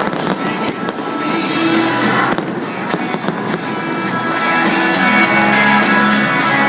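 Fireworks going off in rapid succession, many sharp bangs and crackles, over music from a stadium's loudspeakers.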